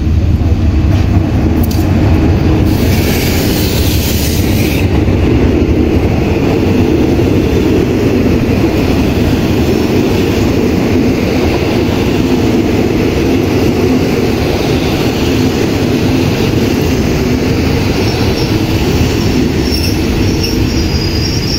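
Passenger coaches of an arriving express train rolling slowly past the platform: a steady, loud rumble of wheels on the rails, with a faint high wheel squeal near the end as the train slows into the terminus.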